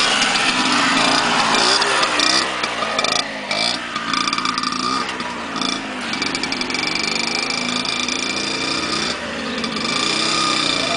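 Tomos APN6 two-stroke mopeds passing close and buzzing away up the road, their engine pitch rising and falling as they rev. About ten seconds in, the engines of approaching motorcycles get louder.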